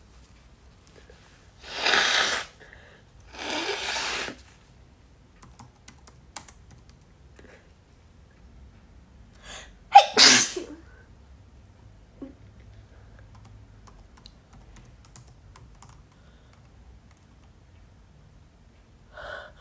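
A woman sneezing three times in a sneezing fit from a cold: two sneezes in quick succession about 2 and 4 seconds in, then a third, sharper one about 10 seconds in.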